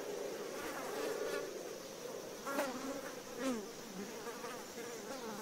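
Blowflies buzzing around a crab carcass, a steady drone that wavers in pitch, with a couple of flies passing close and dropping in pitch near the middle.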